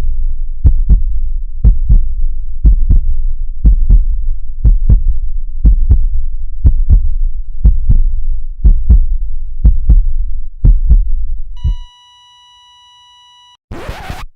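Heartbeat sound effect: about a dozen paired lub-dub beats, roughly one a second, over a low rumble. The beats stop and a steady flatline beep sounds for under two seconds, followed by a short burst of hiss.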